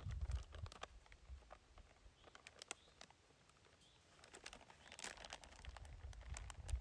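Faint crinkling and clicking of plastic being handled, in scattered bursts, with a low wind rumble on the microphone near the start and end and a few faint bird chirps.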